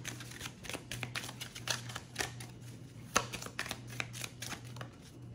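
A deck of angel oracle cards being shuffled hand over hand: a run of irregular soft card flicks and slaps, over a faint steady low hum.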